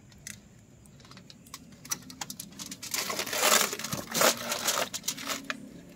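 Aluminium foil crinkling as hands press it around the rim of a foil-sealed pot. It starts with scattered crackles and builds to a dense burst of crinkling about three seconds in, then thins out.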